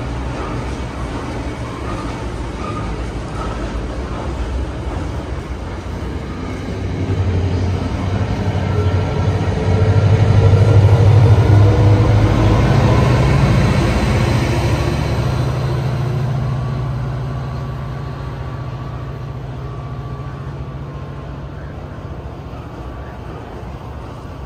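Diesel-electric PL42AC locomotive running with a steady low engine hum. The hum grows louder to a peak about ten to thirteen seconds in, then fades as the train passes.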